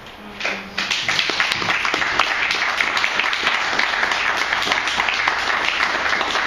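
Small audience applauding, a dense patter of hand claps that starts just under a second in and keeps on steadily.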